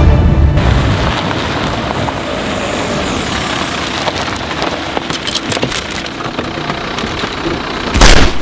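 Car driving fast on a gravel track, tyres crunching over loose stones, with a heavy low rumble that fades in the first second and scattered small clicks. A single loud bang near the end.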